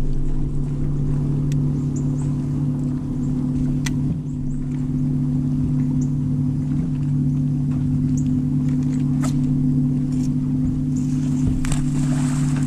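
Steady low hum of a bow-mounted electric trolling motor running, with a few light clicks over it.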